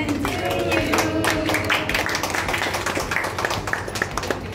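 A group of people clapping their hands, with voices and music underneath.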